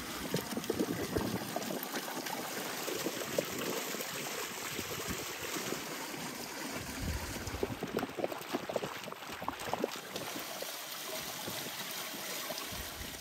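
Running water pouring and splashing over a mass of grapes in a stainless steel bowl as they are rinsed, a steady splashing rush.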